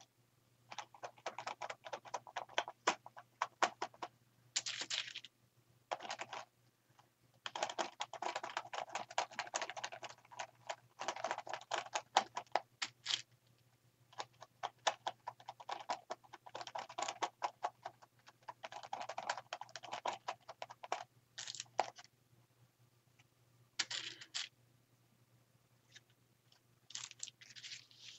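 Quick runs of light tapping as ink is dabbed through a stencil onto a paper journal page. The taps come in bursts of a few seconds with short pauses between them.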